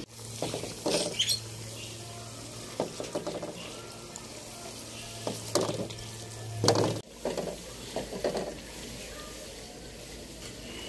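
Spatula stirring and scraping egg-and-potato masala in a metal pot as it fries on a gas burner, with irregular scrapes and knocks against the pot. This is the bhuna stage, the masala being fried down with the eggs and potatoes.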